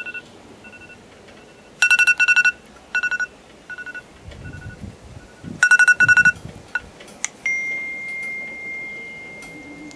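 iPhone timer alarm going off to signal that the set time is up: electronic beeps in clusters of rapid pulses with softer single beeps between. About seven seconds in there is a click, then a single steady high tone that slowly fades.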